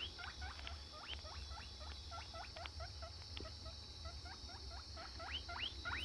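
Small animal chirping: a rapid run of short rising squeaks, about five a second, over a steady high hiss.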